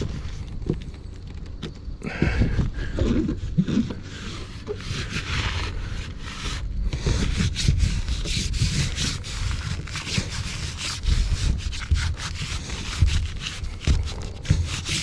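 Irregular rubbing and scraping by hand on a rough surface, with many short crackles and scattered low knocks and no steady rhythm.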